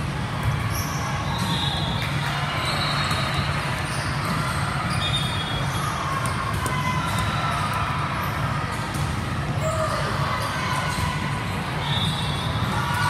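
Volleyballs being served, struck and bouncing in a large multi-court gym: sharp hits and knocks over a steady low hall rumble, with players' brief calls and short high squeaks scattered through.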